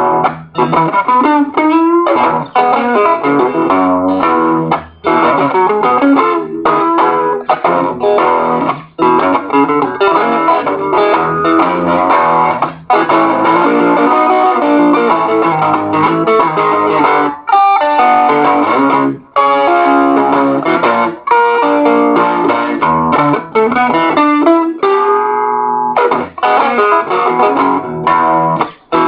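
Electric guitar playing a blues boogie, pausing briefly several times between phrases.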